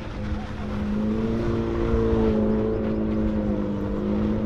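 Mini Cooper's engine held at high, steady revs while the car drifts on loose dirt, over a low rumble.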